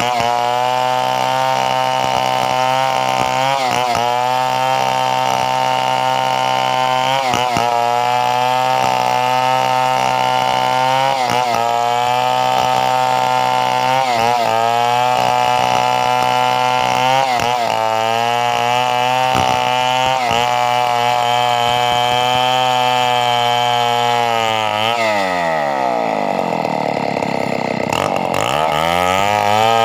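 Two-stroke chainsaw running hard at high speed, its note dipping briefly every three or four seconds. Near the end the engine drops slowly toward idle, then revs back up.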